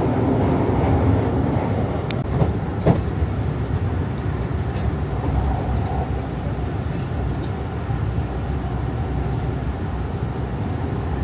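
Subway train running, heard from inside the car: a steady low rumble with a couple of sharp clicks about two and three seconds in.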